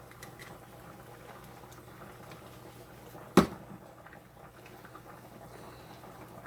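Faint sizzling and light popping from oil and water heating in a pan on the stove, with one sharp knock about three and a half seconds in.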